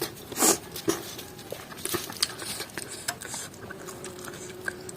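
Eating sounds: scattered small clicks and smacks of chewing and handling food, with one louder rustle about half a second in, over a faint steady hum.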